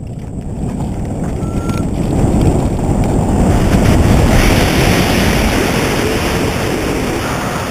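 Wind rushing over the microphone as a hang glider launches and picks up airspeed, building to its loudest about four seconds in.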